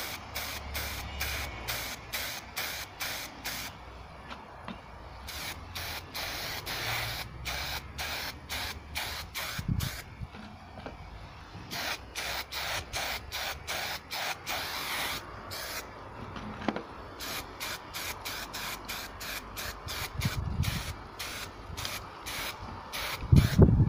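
Aerosol spray can of primer sprayed onto a fabric lampshade in many short hissing bursts, a few a second, in runs with brief pauses, laying down a light tack coat. A loud handling thump comes near the end.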